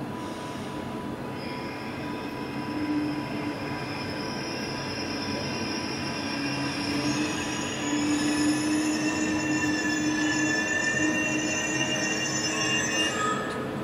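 Red double-deck S-Bahn train pulling out and rolling closer, its wheels squealing in several high, steady tones that set in about a second and a half in and grow louder over the rolling noise.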